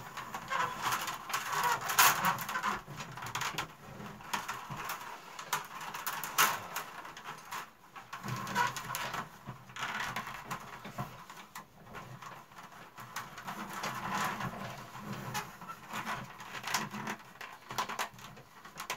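Split willow strips and willow stakes rustling and creaking under the fingers as a basket is woven by hand, with irregular scratching and a few sharp clicks.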